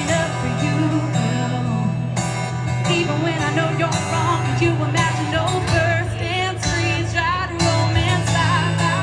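Live amplified concert music: a woman singing with vibrato over acoustic guitar and steady low accompaniment.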